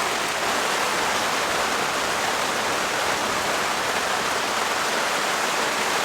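Heavy rain falling steadily on a tarp overhead: a dense, even hiss.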